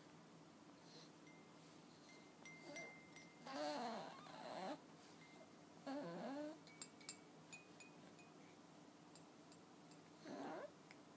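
A young baby cooing softly in several short vocal sounds, with faint tinkling, chime-like notes and light clicks from a baby toy between them.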